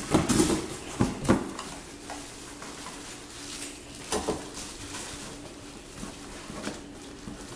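An air fryer being handled and lifted out of its cardboard box: rustling and scraping of cardboard and plastic wrap, with a few sharp knocks in the first second and a half and another about four seconds in.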